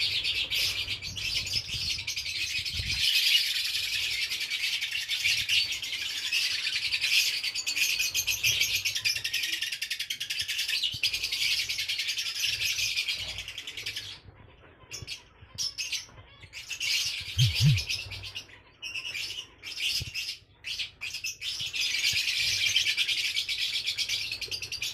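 A flock of lovebirds chirping in a dense, continuous high-pitched chatter. It thins to scattered single calls for several seconds past the middle, then fills in again near the end.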